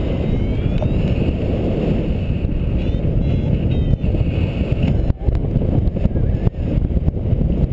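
Heavy wind noise buffeting the microphone of a paraglider pilot's worn camera through the launch run and the first seconds of flight, a dense low rumble with a couple of brief dips in the second half.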